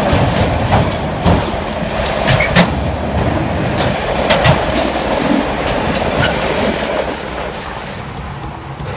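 Autorack freight cars rolling past close by, their wheels clacking irregularly over the rail joints with a steady rumble. The sound fades over the last couple of seconds as the end of the train goes by.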